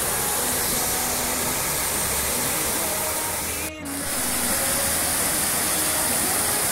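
Small waterfall pouring over a rock ledge into a plunge pool: a steady rush of falling water, with a short dip in level about four seconds in.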